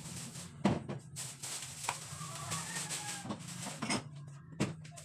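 Short knocks and clatter of groceries being put onto refrigerator shelves, about five in all, with rustling in the middle, over a steady low hum.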